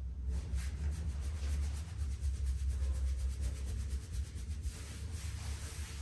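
Hands rubbing briskly over a patient's clothed body in a massage, a run of quick, rhythmic friction strokes, over a steady low hum.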